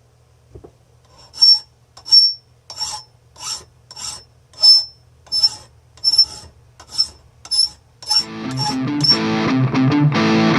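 Hand file scraping the steel body of an adjustable wrench held in a vise: about a dozen even strokes, roughly one every two-thirds of a second, each with a thin high squeal, filing down the flared edges of the jaw slot where the moving jaw binds. About eight seconds in, electric guitar music comes in.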